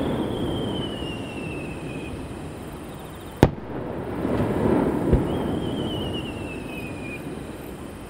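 Aerial fireworks shells firing from a valley floor: two whistles, each sliding down in pitch for about two seconds, and one sharp bang a few seconds in, with a smaller thump after it. Between them a low rolling rumble swells and fades as the booms echo back off the surrounding mountains.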